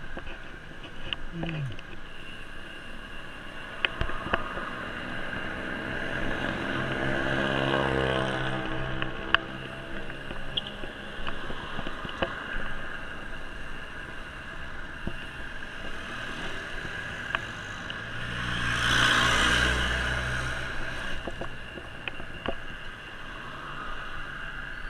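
Motor vehicles passing a moving bicycle over steady road and wind noise. One goes by about eight seconds in with an engine note that rises and falls, and a louder one passes close at around nineteen to twenty seconds.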